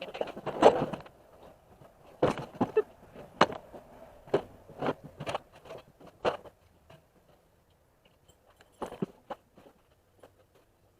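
Irregular knocks and clatter of objects being picked up, moved and set down, with a busy run in the first seven seconds and a few fainter knocks near the end.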